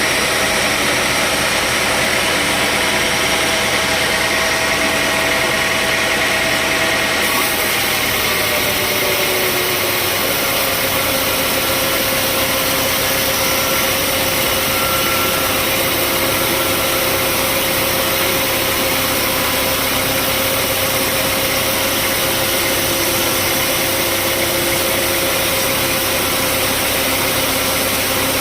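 Sawmill machinery running steadily, an engine-driven saw, with a dense mechanical noise and a steady hum. Its pitch drops a little about eight seconds in, then holds level.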